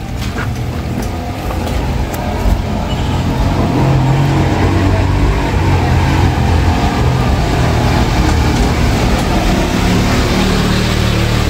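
A small car's engine running as the car drives slowly along a cobblestone lane and passes close by. It grows louder over the first few seconds, then holds steady.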